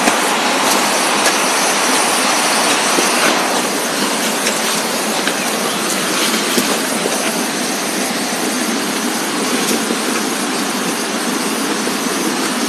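Steady rushing noise throughout, with a few soft knocks of a hoe chopping into soil.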